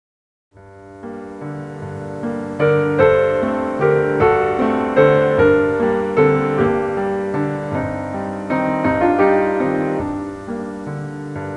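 Piano music starts about half a second in, after silence: separate struck notes of a slow melody over held low notes, growing louder toward the middle.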